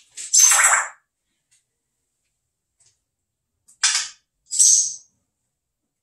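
African grey parrot making three short, hissy, rasping sounds: one about half a second in, then two close together past the middle.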